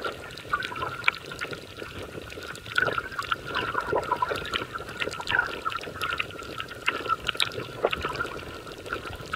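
Underwater sound from a camera moving over a coral reef: dense, irregular crackling clicks over a steady hiss of water.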